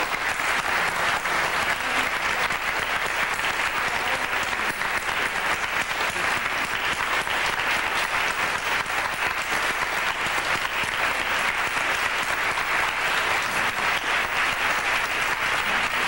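A large audience applauding steadily at the close of a speech: a standing ovation, with the clapping keeping up at an even level throughout.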